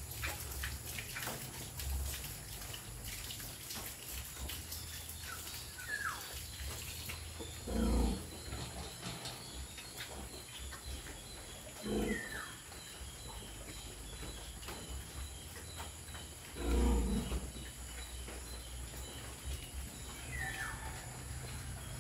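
Piglets grunting in their pen: three short, low grunts several seconds apart.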